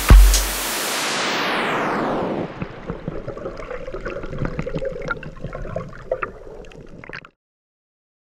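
An electronic dance track ends on a last kick drum and a wash of noise that falls in pitch. About two and a half seconds in, it gives way to underwater sound from the camera: a low, uneven rushing wash with many small crackling clicks, which cuts off suddenly near the end.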